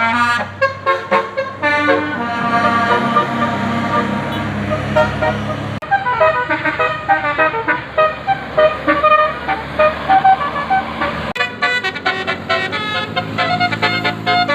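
A bus's 'telolet basuri' multi-tone musical horn plays a rapid melody of short notes over a steady low engine drone. The tune breaks off and starts afresh twice, about six and eleven seconds in.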